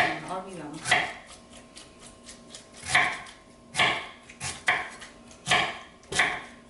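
Knife chopping food on a wooden cutting board: sharp, irregular strikes about once a second, eight or so in all, with a short pause about two seconds in.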